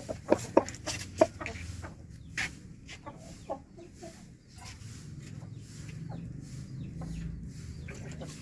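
Chickens clucking in many short, scattered calls, loudest in the first second or so.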